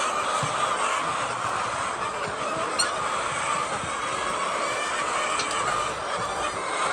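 A large flock of chickens clucking and calling together, a dense steady din with a single sharp click about three seconds in.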